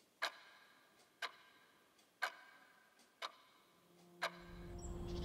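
Sharp ticks, evenly spaced one second apart, five in all, each with a brief ringing tail. A low steady drone fades in about four seconds in.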